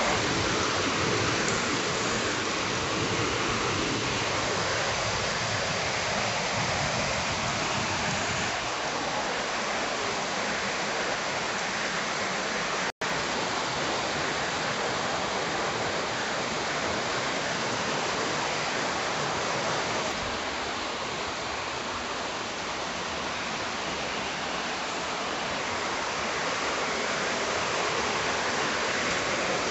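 Steady rain falling, an even hiss of water with no break in it. The sound drops out for an instant about thirteen seconds in.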